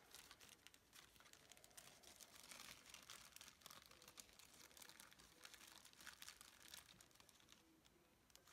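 Faint crinkling and rustling of a hand handling something, made of many short scratchy ticks that die down near the end.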